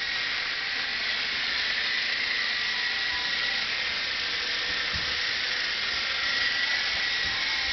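Hobbico FireStrike, a small electric indoor RC helicopter, in flight: a steady hissing rush of motor and rotors with a high whine that wavers slightly in pitch.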